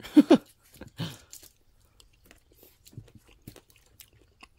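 Person eating coffee ice cream with crunchy chocolate chips: soft chewing and scattered small mouth clicks. A short voiced sound, the tail of a spoken word, comes right at the start and is the loudest thing.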